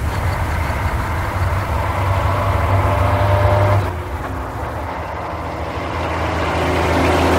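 Truck engine running with a steady low rumble that swells, drops off suddenly about four seconds in, then builds again.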